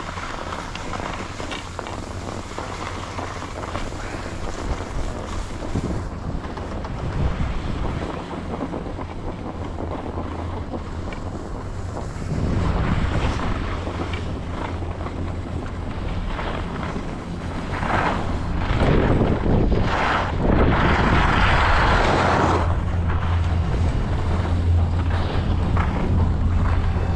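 Wind buffeting the camera microphone while sliding downhill on snow, with the rasp of edges over packed snow. It gets louder about halfway through and again in the last third, with strong surges of rushing noise.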